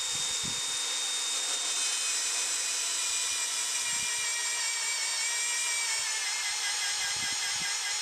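Milwaukee M18 Fuel magnetic drill running at about 400 RPM with a steady high whine, its 3/4-inch annular cutter being fed down onto quarter-inch steel to start the cut. The whine drops slightly in pitch about halfway through.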